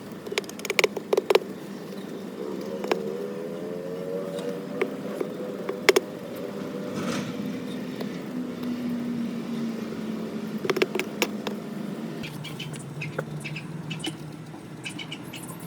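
A motor humming steadily in the background, its pitch slowly rising and then falling, with a few quick clusters of sharp clicks and taps.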